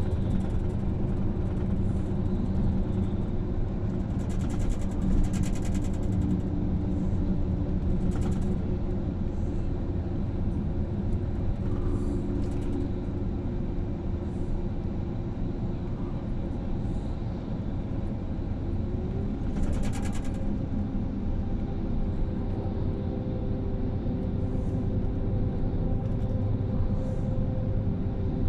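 Bus engine and tyre noise heard from inside the passenger cabin, a steady drone with low engine tones. Several brief hisses cut through it, the clearest about five and twenty seconds in.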